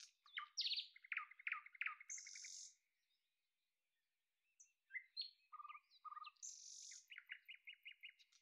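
Songbirds chirping faintly: short calls and rapid trills in two spells, with a pause of about two seconds between them.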